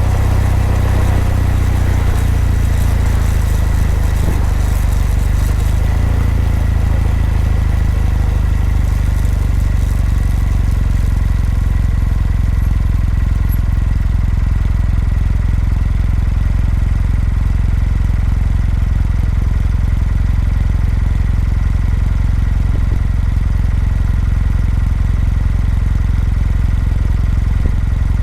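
Kawasaki W800's air-cooled parallel-twin engine and exhaust heard from the bike on the move. Over the first several seconds the engine note falls and the wind rush fades as the bike slows. It then settles into a steady, low rumble.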